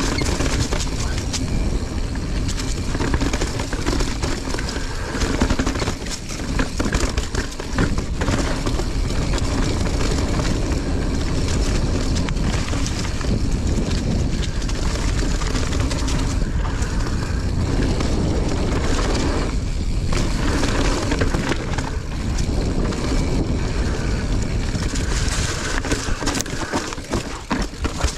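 Mountain bike being pedalled up a dirt trail: continuous tyre, chain and frame rattle noise, with wind rumbling on the microphone.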